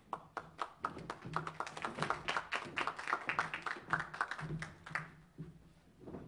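Applause from a small crowd, with separate hand claps heard clearly. It dies away after about five seconds.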